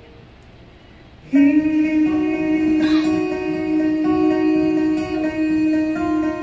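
Live acoustic guitar: after a brief hush, a chord is struck about a second in and rings on with sustained notes as the playing continues.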